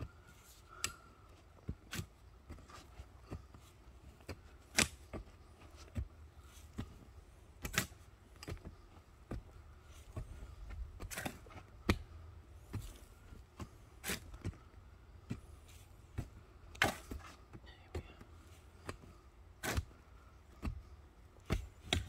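Shovel and hoe chopping and scraping into root-filled soil while a trench is dug, giving irregular sharp strikes.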